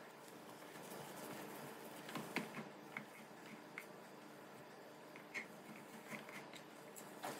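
Faint small clicks and taps of a JIS No. 1 screwdriver working a screw out of a laptop's bottom panel, loudest about two seconds in, with a few more later and one near the end.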